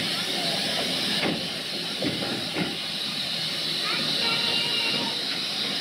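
Steam locomotive hissing steam steadily, with a few soft beats about two seconds in.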